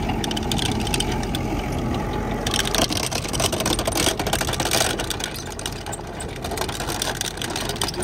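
Tractor engine running under load, driving a trenching machine's digging chain through the soil, with a steady clatter throughout that grows noisier about two and a half seconds in.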